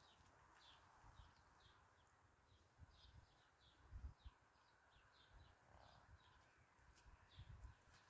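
Faint outdoor quiet with a small bird chirping over and over in the distance, about two short high chirps a second, and a few soft low thumps.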